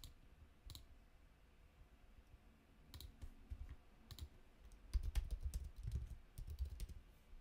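A few single clicks, then about five seconds in a quick run of typing on a computer keyboard, about two seconds long.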